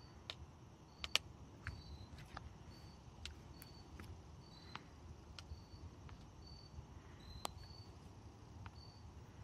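An insect chirping in short, high notes about once a second, with scattered sharp clicks, the loudest about a second in, over a faint low rumble.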